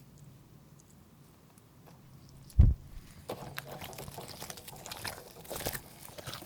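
Slime being handled: a single low thump about two and a half seconds in, then a run of small sticky clicks and crackles as it is pressed and worked.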